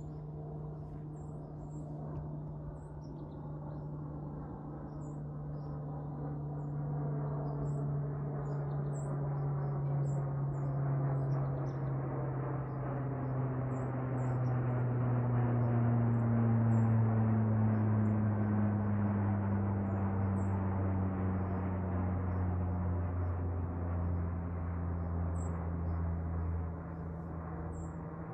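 Propeller aircraft flying overhead: a low, steady propeller drone that grows louder towards the middle and then drops in pitch as it passes. Faint high bird chirps are scattered throughout.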